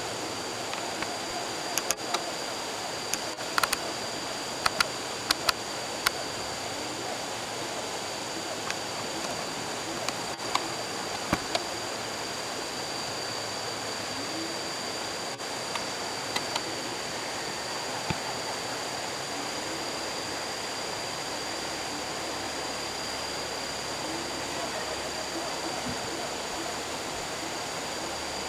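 Steady rushing of river water, with a constant high thin whine and scattered sharp clicks, several close together in the first few seconds.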